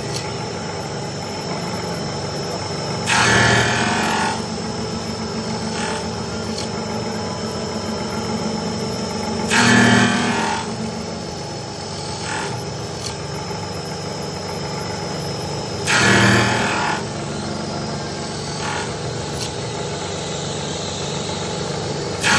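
Special-purpose machine (SPM) running an automatic cycle: a steady motor hum with a thin high whine, broken about every six seconds by a loud burst of about a second as the cycle repeats.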